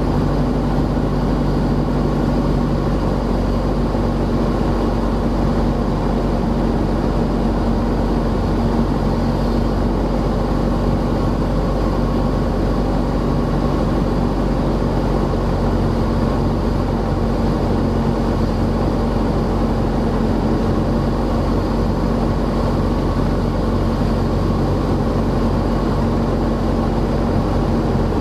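Single-engine Symphony light airplane's piston engine and propeller droning steadily during the landing approach. The engine note shifts slightly a few seconds in and again about halfway through.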